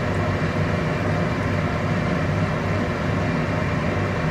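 A steady, constant mechanical hum with a strong low drone, like a running fan or motor.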